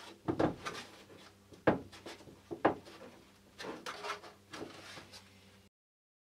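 Plywood wing-root frame on a model airliner being slid along carbon wing tubes and pressed home against the fuselage's wing box: a handful of light wooden knocks and scrapes. The sound cuts off suddenly near the end.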